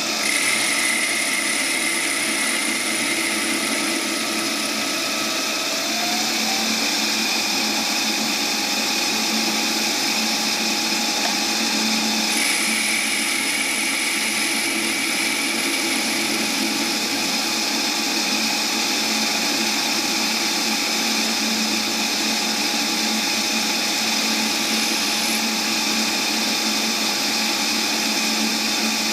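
South Bend lathe running steadily as a tool turns down a spinning hickory shaft. A higher-pitched whine joins the hum twice: at the start and again about twelve seconds in.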